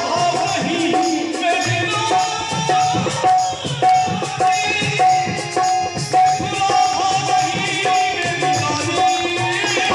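Live Indian devotional music: a man singing over electronic keyboard and harmonium, with a dholak drum playing a steady rhythm.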